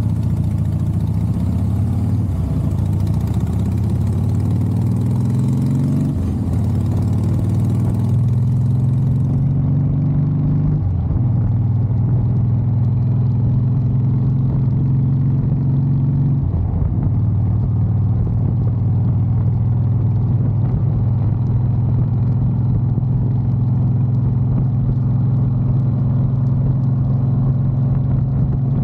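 Harley-Davidson Softail Heritage Classic V-twin engine and exhaust under way, rising in pitch as it pulls through the gears with short dips at the shifts about six, eleven and sixteen seconds in, then running steadily at cruise.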